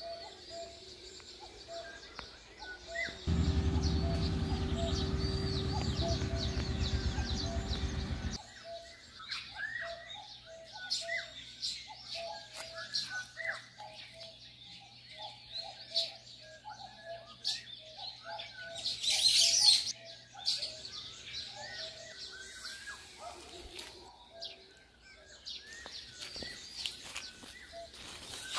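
Small birds chirping and calling with short repeated notes. About three seconds in, a loud, steady low hum cuts in for about five seconds and stops abruptly. About two-thirds of the way through there is a short burst of rustling noise.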